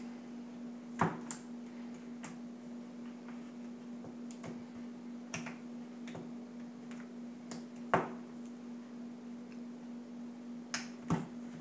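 Scattered sharp clicks and taps as an iPad is pressed and fitted into a holder, the loudest click about eight seconds in, over a steady faint hum.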